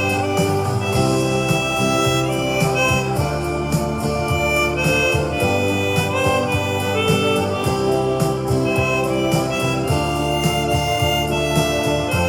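Chromatic harmonica playing a melody of held notes over an accompaniment with bass and a steady beat.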